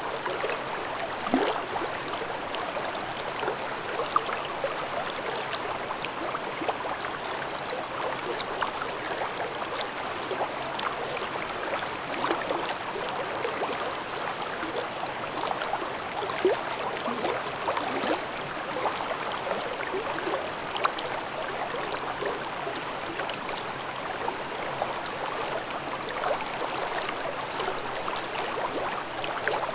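Mountain stream babbling over rocks: a steady rush of water flecked with frequent small gurgles and splashes.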